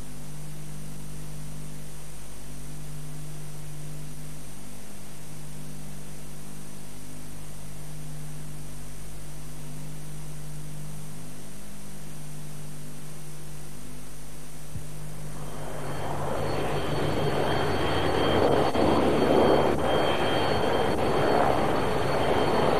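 Steady low electrical hum with hiss over the tape's title cards. About two-thirds of the way in, aircraft engine noise rises in: a loud rushing sound with a steady high whine.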